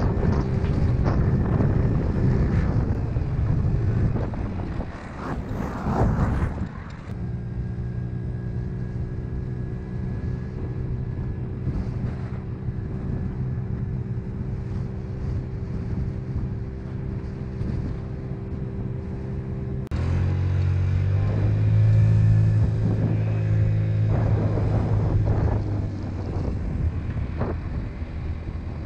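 Honda Elite CH80 scooter's single-cylinder four-stroke engine running steadily while the scooter is ridden, with wind buffeting the microphone. The wind is loud at first and again near the end; in between it drops away and the engine's even hum stands out, turning suddenly louder about two-thirds through.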